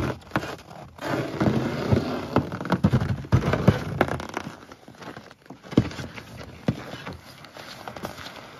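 Footsteps crunching on snow-covered ice, with scattered knocks and scrapes. Dense crunching in the first few seconds, then sparser single clicks.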